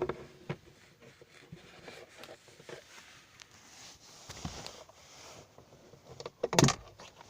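Plastic clicks and knocks from handling a car's glove box as it is freed and lowered to reach the cabin air filter, with a louder clatter near the end.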